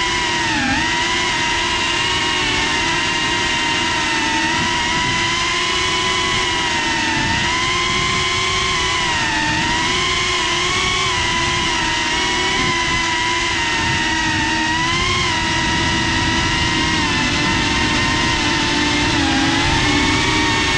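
GePRC Cinelog 35 cinewhoop FPV drone's brushless motors and ducted propellers whining, heard up close from on board, the pitch dipping and rising again and again with the throttle. Rushing air buffets the microphone underneath.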